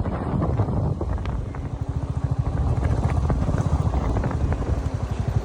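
Motorcycle engine running on the move, with wind buffeting the microphone. The engine's low pulsing comes through more clearly about two seconds in.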